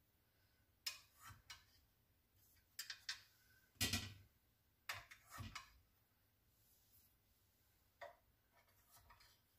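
Scattered light clicks and knocks as a utensil works paper-lined cupcakes out of a metal muffin tin and sets them down on a perforated metal pizza pan. The loudest knock comes about four seconds in, with a few more just after and two faint ones near the end.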